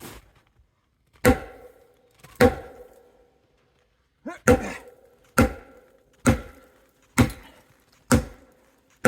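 A heavy blacksmith's hammer pounding a fallen log, about eight hard blows: two, a short pause, then roughly one a second. Each blow leaves a brief ringing tone.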